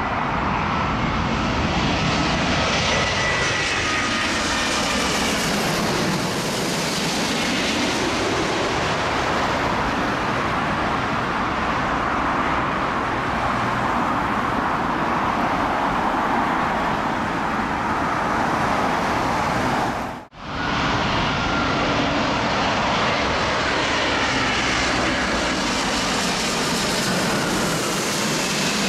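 Jet engine noise from a Boeing 787-9 airliner passing low overhead on final approach: a whine falls in pitch as it goes by, then the sound settles into a steady rush. After a sudden cut about two-thirds of the way in, a second airliner, an Airbus A350-1000, makes a steady rushing jet noise as it approaches to land.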